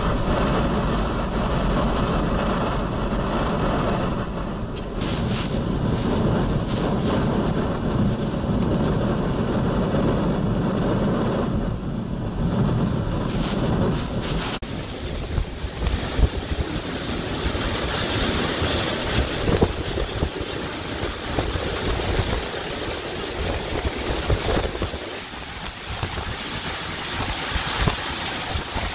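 Hurricane-force eyewall wind howling and buffeting a car, with rain and small debris pelting the body and windshield. About halfway through the sound changes abruptly to wind blasting straight onto the microphone, broken by several sharp knocks.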